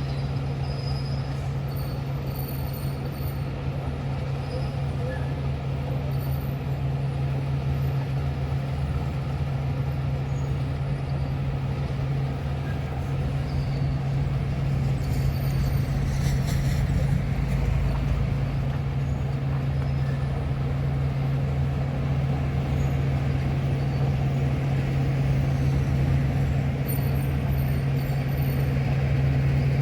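Heavy diesel earthmoving machinery running steadily with a deep, constant engine drone, which grows slightly louder about halfway through.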